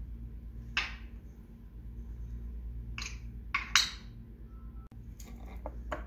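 African grey parrot moving about its metal cage, making a few short, sharp clicks and clinks, the last of four in quick succession the loudest, then fainter taps near the end, over a steady low hum.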